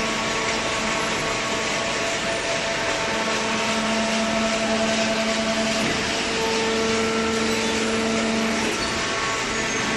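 Hydraulic cardboard baler running, a steady mechanical noise with a pump hum. The hum grows stronger about three seconds in and eases off near the end, as the load on the machine changes.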